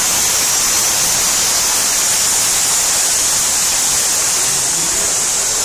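Rushing mountain stream: a loud, steady, even hiss of water flowing over rocks.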